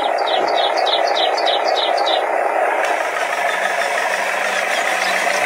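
RC dump truck's engine sound running steadily at idle, a simulated diesel drone with almost no deep bass. A quick run of short high chirps sounds over it for the first two seconds or so, then stops.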